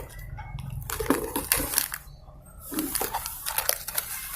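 Handling noises while unpacking: plastic packaging crinkling and small clicks as connector sockets and cables are taken out, in two bursts of rustling about a second in and again near the end.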